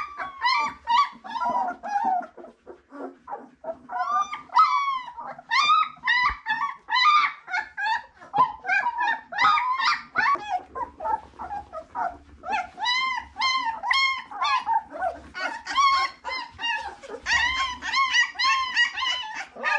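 Young puppies whining and yelping in short, high-pitched, rising-and-falling calls, one after another almost without a break.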